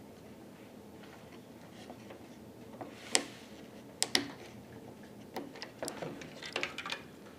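Scattered sharp clicks and taps of small plastic parts being handled while a Syma X8C drone body is taken apart: one click about three seconds in, a quick pair a second later, then a cluster of lighter clicks near the end.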